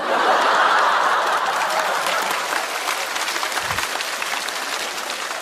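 Studio audience applauding with some laughter after a punchline, loudest at the start and slowly dying down.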